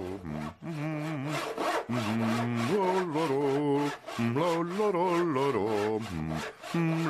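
Handsaw cutting through a wooden plank in repeated back-and-forth strokes. Each stroke carries a wavering, pitched ring.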